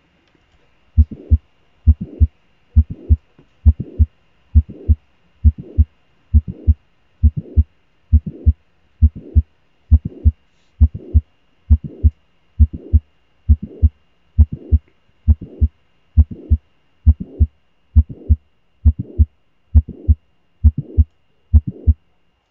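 Recorded heart sounds of mitral valve prolapse: a steady beat of about one a second, each beat a first heart sound followed by a click and a blowing murmur that ends at the second heart sound.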